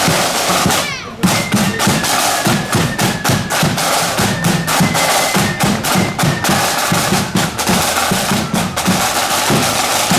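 A marching band playing a march, carried by rapid snare drum rolls and bass drum beats, with a short break about a second in.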